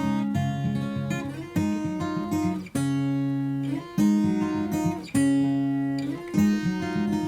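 Background music: acoustic guitar playing, notes and chords struck about once a second and left to ring.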